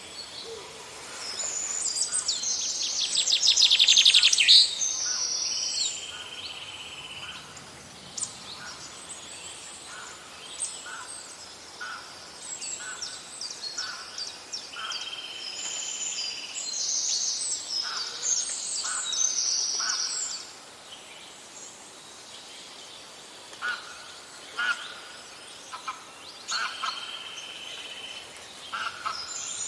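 Songbirds singing in phrases of high whistles and trills, the loudest a fast trill about four seconds in, with scattered short calls between phrases.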